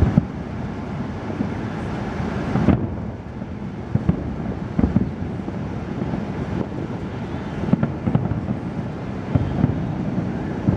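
Distant aerial fireworks shells bursting: a continuous low rumble of booms, with sharper bangs every second or two.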